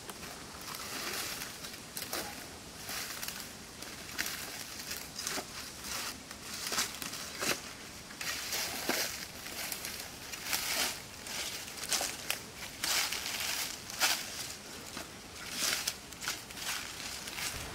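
Dry leaf litter crunching and crackling underfoot and under a metal detector's coil as it is swept over the forest floor, in irregular short crunches.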